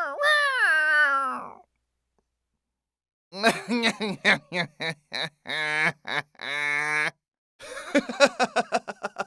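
Cat meowing: a long drawn-out meow falling in pitch, then after a pause of about two seconds a string of short meows.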